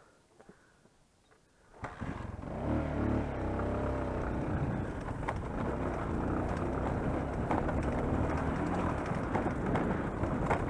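Dirt bike engine coming in suddenly about two seconds in and rising in pitch as the bike pulls away, then running steadily under way across rough stubble, with a rushing noise over it.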